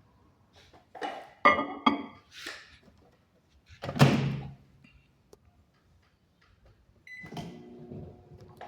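Microwave oven being handled: clattering knocks and a loud thump about four seconds in. About seven seconds in a short beep sounds and the oven starts running with a steady hum.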